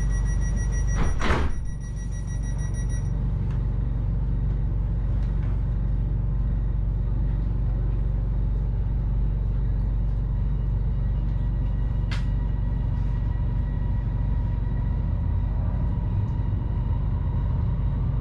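Bangkok Airport Rail Link train at a station stop. A rapid door-warning beep sounds until about three seconds in, and the doors close with a short loud burst of noise about a second in. The train's low steady hum follows, and near the end the motor whine rises as the train starts to move off.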